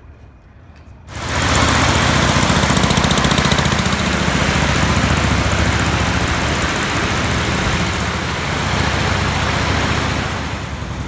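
An engine running steadily with a loud rushing hiss over it, coming in suddenly about a second in and easing slightly near the end.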